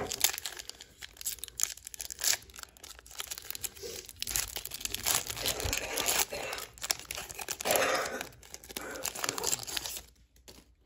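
Foil wrapper of a Pokémon booster pack being torn open and crinkled by hand: a continuous crackling, rustling tear made of many short sharp crackles, stopping near the end.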